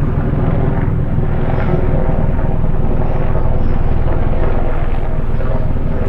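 Loud, steady engine and rotor drone of an aircraft, a dense low rumble with a constant hum over it.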